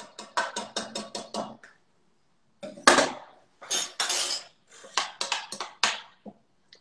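A utensil rattles quickly in a stainless steel mixing bowl. Then a lime is grated on a metal grater held over the bowl for zest, in three short runs of scraping strokes.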